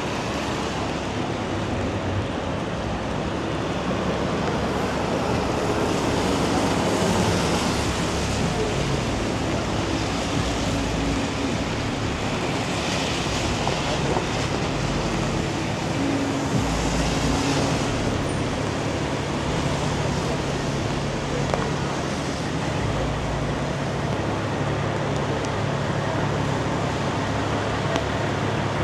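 City street traffic on rain-wet pavement: a steady hiss of tyres on the wet road over a low engine hum, swelling a few times as vehicles pass.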